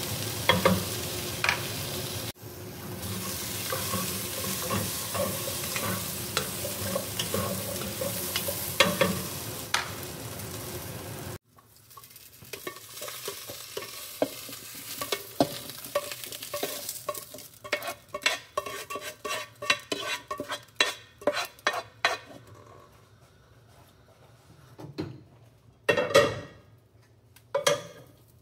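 Potato chunks sizzling in oil in a pot, stirred with a wooden spoon that scrapes the pan. About eleven seconds in the sizzle cuts off, giving way to a quick run of light knocks and clicks as the browned potatoes are spooned into the slow cooker's crock over the beef, with a few louder thumps near the end.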